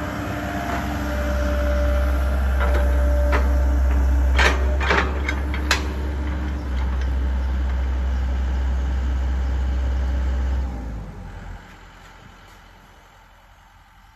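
Komatsu crawler excavator's diesel engine and hydraulics running hard while working a dump truck, with a handful of sharp knocks from rubble and the bucket against the steel truck bed a few seconds in. The engine note falls away suddenly near the end as it throttles down.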